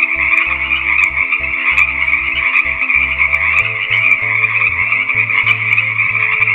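A dense, steady chorus of many small animals calling at once, a continuous chattering trill that never breaks.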